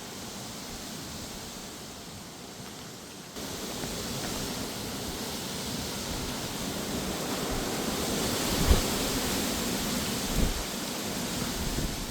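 Strong, gusty wind with rain: a steady rushing hiss that jumps louder about three seconds in and keeps swelling. Near the end, two short low thuds of gusts buffet the microphone.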